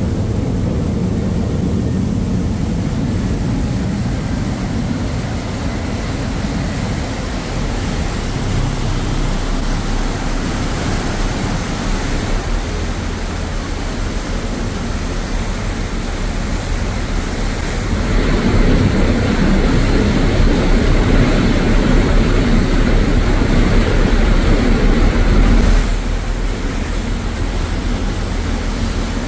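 Harbour ferry's engine running, with the wake churning and rushing behind the stern. A steady rumble and rush that grows louder about two-thirds of the way through, then drops back suddenly a few seconds before the end.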